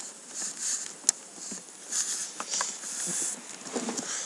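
Footsteps with rubbing and knocking handling noise on a webcam microphone as it is carried: short scuffs every half second or so and a couple of sharp clicks, one at the start and one about a second in.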